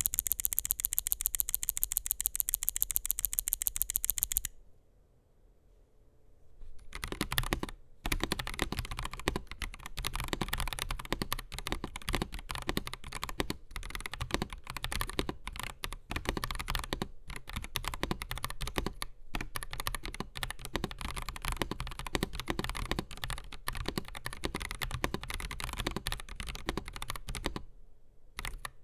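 Typing on an AKKO 5075S mechanical keyboard with Akko CS Crystal linear switches, PBT Cherry-profile keycaps and a polycarbonate plate. Keystrokes clack in a steady, uneven stream from about seven seconds in, with a brief pause near the end. It opens with a few seconds of a fast, perfectly even run of sharp clicks.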